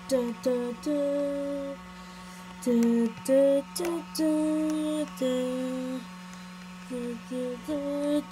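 A simple tune in held notes, most likely a person humming, each note half a second to a second long with short gaps between. A steady low hum runs underneath, and a few sharp clicks come through.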